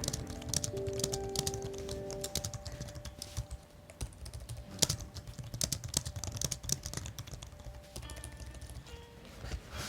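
Typing on a MelGeek Mojo75 gasket-mounted aluminium mechanical keyboard fitted with hand-lubed Matcha switches: quick, irregular keystrokes in a steady stream, with one sharper key clack about five seconds in.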